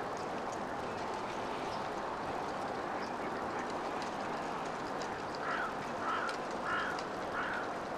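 Yellow-legged gull calling: a run of five short, evenly spaced calls, a bit under two a second, starting about five seconds in, over a steady background noise.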